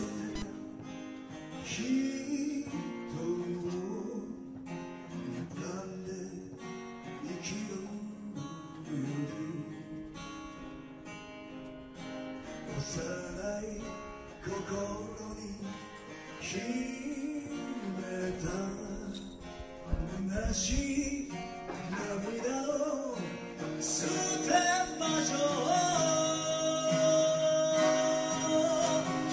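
Steel-string acoustic guitar strummed and picked in an instrumental passage of a song, with a man's singing voice joining near the end on long held notes.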